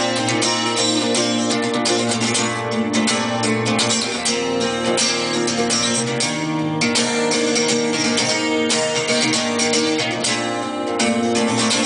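Crafter electro-acoustic guitar being played without pause, a steady stream of plucked and strummed chords.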